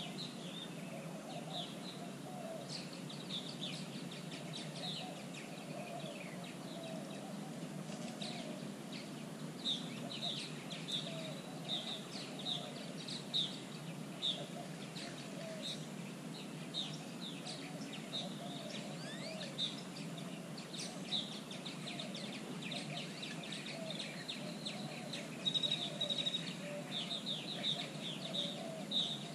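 Background chorus of birds: many short, quick high chirps, with a lower wavering calling under them, over a steady low rumble of outdoor noise. The chirping grows busier and louder near the end.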